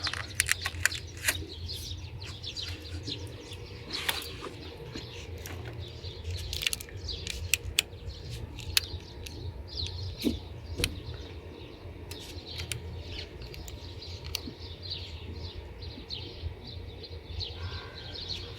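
Small birds chirping on and off, with scattered sharp clicks and a steady low hum underneath.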